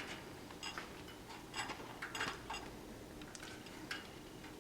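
A parrot picking over sunflower seeds: faint, scattered clicks and taps, about seven spread over a few seconds.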